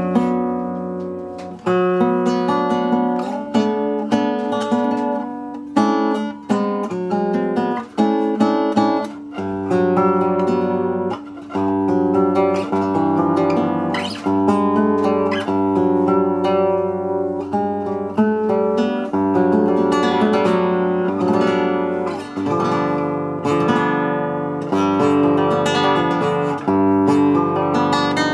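Newly built seven-string acoustic guitar by luthier Anton Khorin, played throughout in a sound test: plucked chords and melody ringing over low bass notes, with a fresh note or chord about every second.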